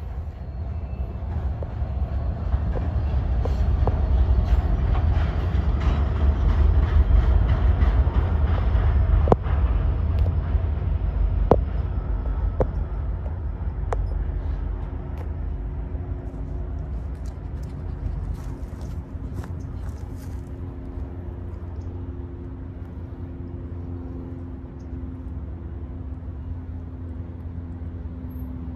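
Short freight train led by two ex-Santa Fe diesel locomotives rumbling across a street overpass. The heavy low rumble builds to a peak, carries several sharp clicks, then slowly fades to a lower steady rumble.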